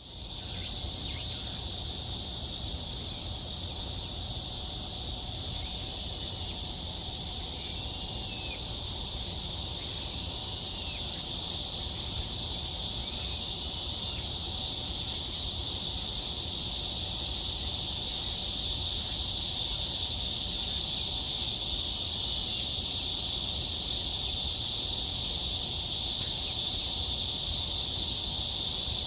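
Cicadas calling in a dense, continuous high-pitched chorus that slowly grows louder.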